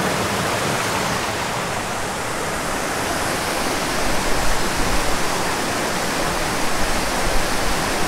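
Small mountain creek rushing over boulders and spilling down a little waterfall into a pool: a steady rush of water.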